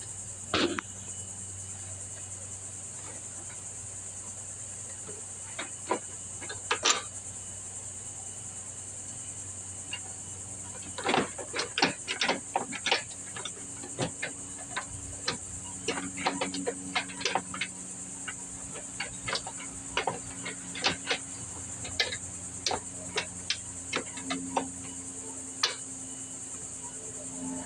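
Irregular metallic clicks and taps of hand tools as screws are fitted back into the riding mower and tightened, coming several a second for most of the second half. Under it runs a steady high chirring of crickets.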